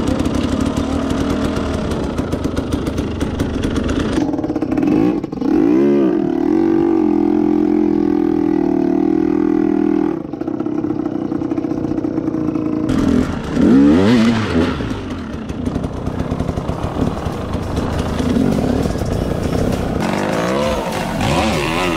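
Dirt bike engine running and revving, its pitch swinging up and down about six seconds in and again around fourteen seconds, held steady in between.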